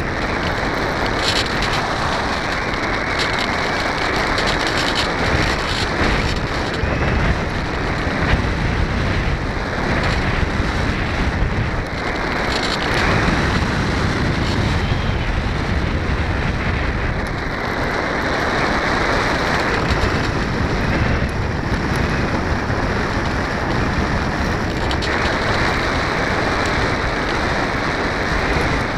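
Steady rush of airflow buffeting the onboard camera's microphone on an RC model plane in flight: a dense, even hiss and rumble.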